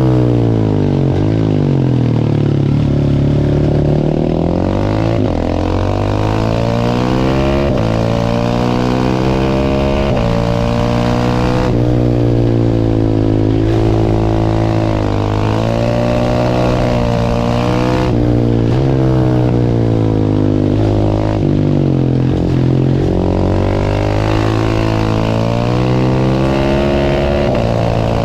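Single-cylinder supermoto motorcycle engine being ridden hard, its pitch rising and falling again and again with throttle and gear changes.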